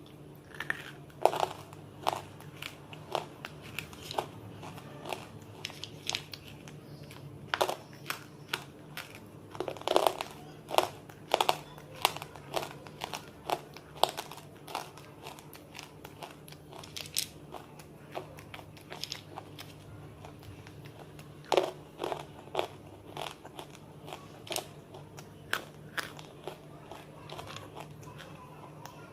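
Close-up crunching bites and chewing of something hard and brittle, with sharp irregular crunches about once or twice a second.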